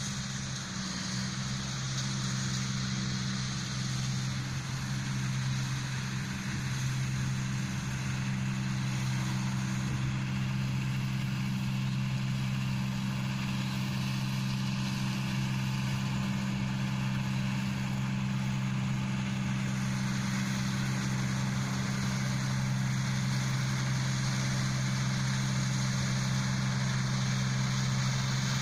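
New Holland combine harvester's diesel engine and threshing machinery running steadily at a constant pitch as it works the rice paddy, growing slightly louder as it comes nearer.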